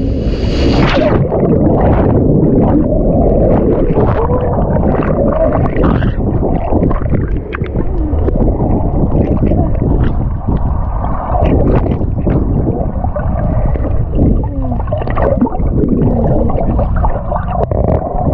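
Water rushing and gurgling over a wet camera microphone during a ride down a water slide, with scattered knocks and bumps.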